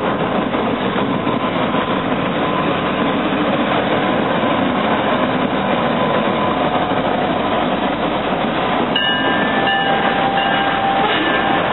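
Freight train rolling past close by: a Norfolk Southern diesel locomotive and then covered hopper cars, with a steady din of engine and wheels on rail. A thin high squeal comes in and out near the end.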